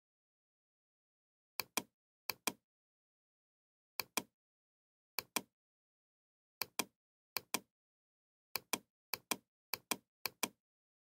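Computer mouse clicking in quick pairs, about ten pairs at irregular intervals of half a second to a second and a half, with dead silence between.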